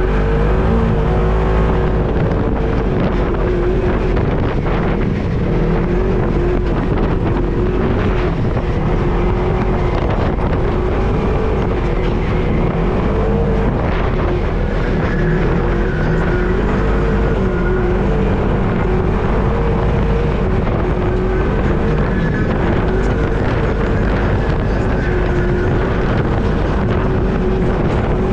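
Off-road vehicle engine running under load as it drives, its pitch rising and falling gently with the throttle, over a strong low rumble.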